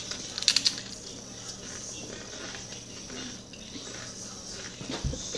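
Doritos tortilla chips being bitten and chewed: a quick run of crisp crunches about half a second in, then quieter intermittent crunching.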